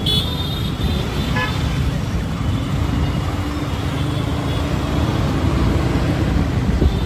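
Busy city road traffic heard from a moving auto-rickshaw: a steady engine and road rumble, with a horn fading out at the start and one short horn toot about a second and a half in.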